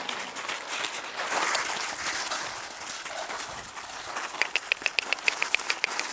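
A dog moving about, with rustling, then a quick run of sharp clicks at about eight a second near the end, like paws and claws pattering on a hard surface.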